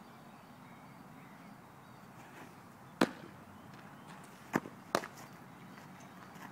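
Baseball popping into a leather glove during throwing practice: one sharp pop about three seconds in, then two more about half a second apart, over faint outdoor background.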